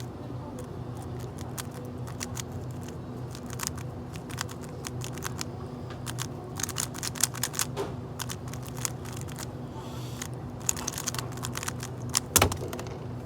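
Speedcube being turned fast by hand, in runs of quick plastic clicks and clacks that grow denser in the second half, with one louder knock near the end. A steady low hum runs underneath.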